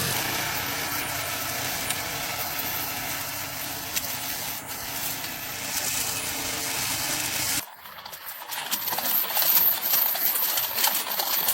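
Remote-control robot lawn mower cutting through grass: a hissing, clattering noise with no clear motor note. It breaks off abruptly about seven and a half seconds in and comes back brighter and hissier.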